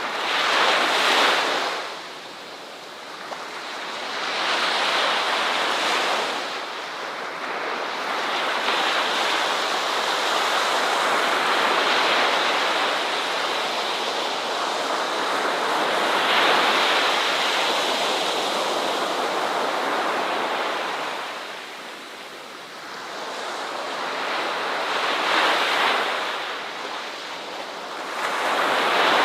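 Ocean waves breaking on a shore, the surf rising and falling in slow surges every several seconds, with some wind on the microphone.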